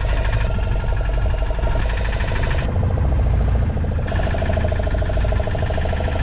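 Fishing boat's engine running steadily, a low rumble with a pulsing drone over it.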